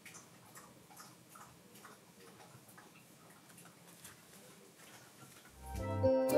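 Faint quick ticking, about two to three ticks a second. Near the end, tinkling music with a deep beat fades in and gets loud.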